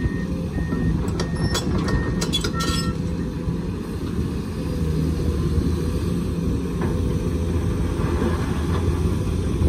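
Heavy diesel engines of a Komatsu excavator and a dump truck running steadily with a deep rumble. Through the first three seconds a backup alarm beeps about twice a second, and a few sharp knocks sound.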